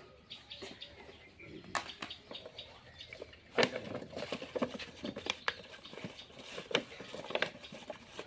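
Handling noises of a plastic jar and a snake hook on dirt ground: scattered light clicks, taps and rustles. The loudest is a sharp knock about three and a half seconds in, as the stick is dropped to the ground.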